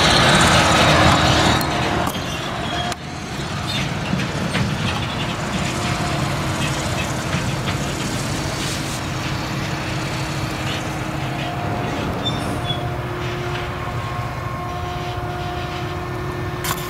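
Tractor towing a Fliegl Gigant trailer driving past close by, loud for the first two seconds, then dropping to a steady engine drone as it pulls away down the track.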